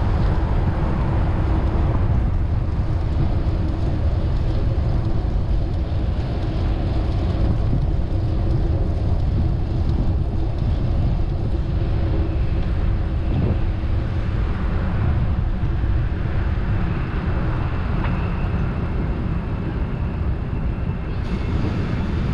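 Steady city traffic noise heard from a moving bicycle, with a constant low rumble of wind on the camera microphone.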